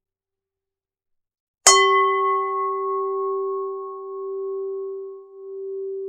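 A Buddhist standing bell (a struck bowl) is hit once, a little under two seconds in. It rings with one clear low tone that wavers slowly in loudness as it fades, while its brighter overtones die away within a second or two.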